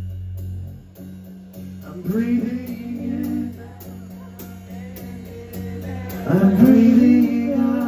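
A live band playing: strummed acoustic guitar and drums, with a lead line of long, bending notes that comes in about two seconds in and is loudest near the end.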